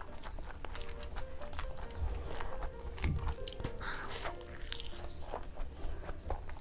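Close-miked biting and chewing of fried eggs with crispy browned edges: wet mouth sounds with sharp crunches and crackles. Soft background music with a simple stepping melody plays underneath.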